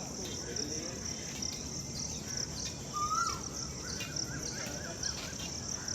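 Crickets or other insects chirring steadily and high-pitched, with a bird giving one short whistled call that rises and then drops about three seconds in, followed by a brief wavering trill.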